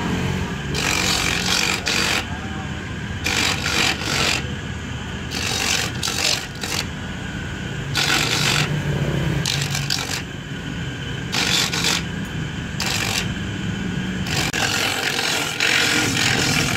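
Electric coconut grater running with a steady motor hum, rasping in repeated bursts, about eight times, each time a coconut half is pressed against the spinning toothed grater disc and its flesh is shredded.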